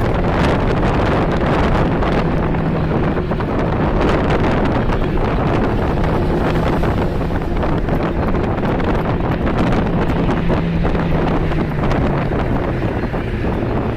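Steady road and wind noise inside a moving car at highway speed, with a low engine hum underneath.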